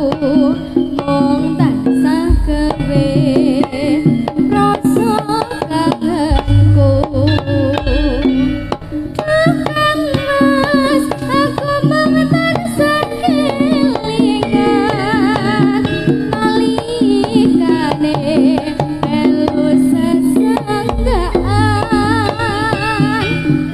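Javanese gamelan music for a jaranan dance: kendang hand drums beat busily under steady pitched gamelan tones, with a wavering sung melody above. Deep low strokes sound a few times, about 2 s, 6.5 s and 21 s in.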